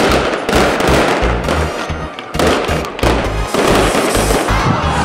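Fireworks bursting and crackling in a dense barrage, with fresh loud bursts about half a second, two and a half and three seconds in.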